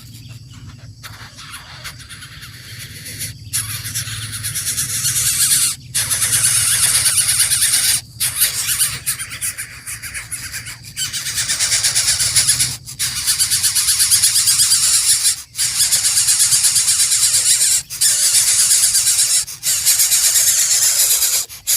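Coucal nestlings begging: a loud, harsh, rapid rasping squeal that swells over the first few seconds and then comes in long bouts broken by short pauses.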